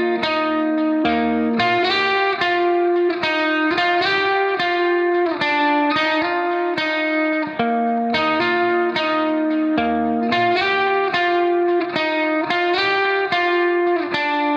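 Background music: a guitar-like plucked melody picking a steady run of notes.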